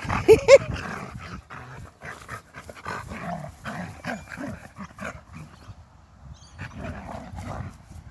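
Two elderly dogs play-fighting. Two short yelps about half a second in are the loudest sounds, followed by a run of low, irregular play growls as they mouth at each other.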